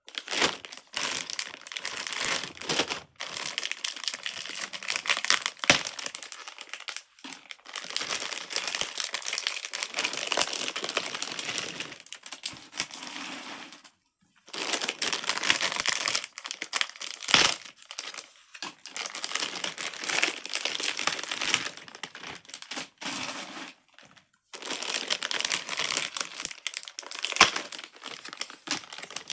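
Crinkly packaging being handled and torn open to take out Pop-It bracelets, in long stretches of dense crinkling with a few sharper snaps. There are short pauses about 3, 7, 14 and 24 seconds in.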